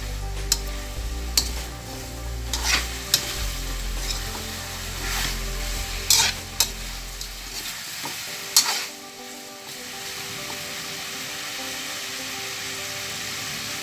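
Parboiled chicken pieces sizzling in a large aluminium wok while a metal spatula stirs and scrapes against the pan in sharp, irregular strokes. About two-thirds of the way in the stirring stops and only the steady sizzle goes on.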